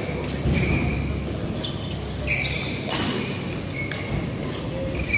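Badminton shoes squeaking on the court mats in short, high-pitched chirps, with a few sharp pops of rackets hitting a shuttlecock during a rally, in a large echoing sports hall.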